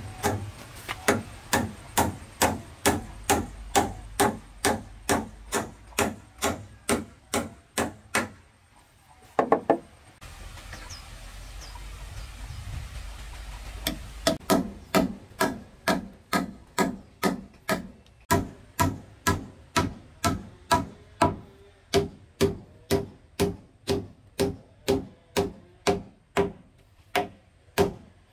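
Hammer blows on wood in a steady rhythm of about two strikes a second, broken off by a pause of a few seconds about a third of the way in, then resuming at the same pace.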